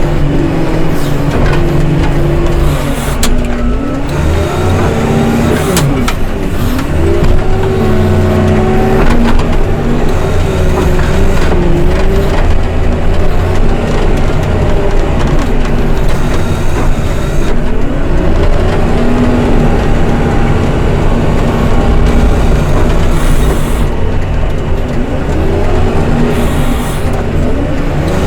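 Heavy snow-clearing machine's engine running loud, its pitch rising and falling again and again as it revs up and down under changing load.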